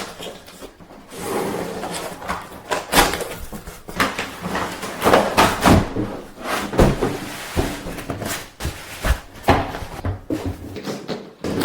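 Handling noise from a teleprompter's aluminum frame and mount being adjusted by hand: irregular knocks and clicks with rubbing and scraping between them.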